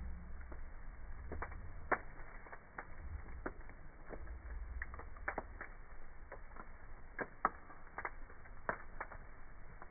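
Wood fire crackling in a fireplace: irregular sharp pops and snaps, a few every second, over a low rumble.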